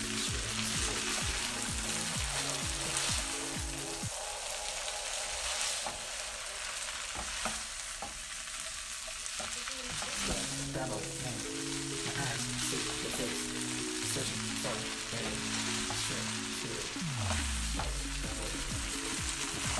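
Yakisoba noodles, cabbage and sliced meat sizzling in a non-stick pan as they are stir-fried and tossed with a wooden spatula. Many short clicks and scrapes come from the spatula against the pan.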